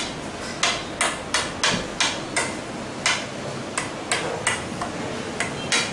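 A fork pricking rolled-out dough on a marble countertop: a run of sharp taps, about two or three a second and unevenly spaced, as the tines strike through the dough onto the stone. The dough is being docked so the papri won't puff up.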